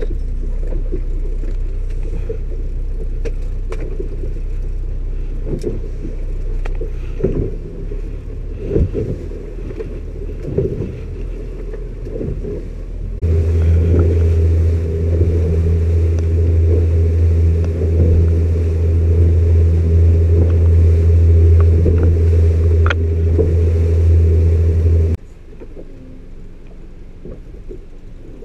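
Boat engine running at low speed, then throttled up about 13 seconds in to a strong, steady drone while under way. It is throttled back abruptly near the end to a low hum.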